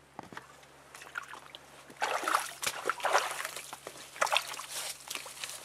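Irregular rustling and swishing of reeds, leaves and branches as a person pushes through tall grass and shrubs on foot, starting about two seconds in.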